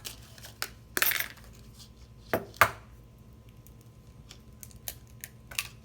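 An egg knocked against the rim of a mixing bowl and cracked open: two sharp knocks close together about two and a half seconds in, with lighter clicks and a short rustle around them.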